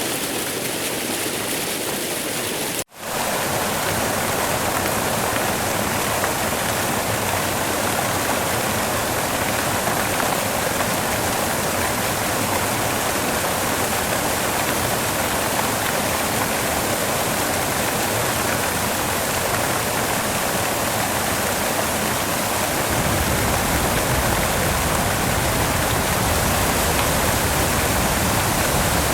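Waterfall: a steady, full rush of falling water. It cuts out for a split second about three seconds in and comes back slightly louder.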